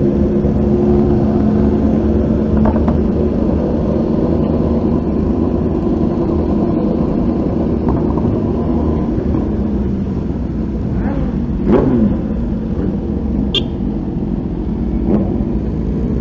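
Kawasaki Ninja 400's parallel-twin engine running at low, steady revs on a slow group ride, mixed with the engines of other sport motorcycles close by. About twelve seconds in the engine pitch briefly dips and rises again.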